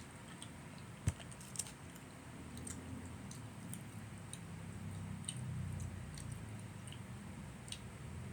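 Sounds of eating and handling food: scattered small clicks and taps, with a sharp knock about a second in and a softer one just after.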